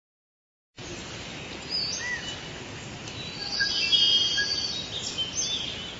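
Recorded jungle ambience: a steady background hiss with scattered bird chirps and whistles, starting about a second in and tailing off near the end.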